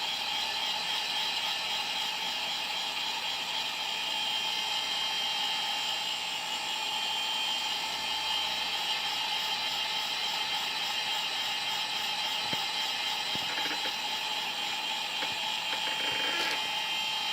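Hot-air tool blowing steadily, its fan giving a continuous whine, while it heats a phone screen to soften the adhesive underneath.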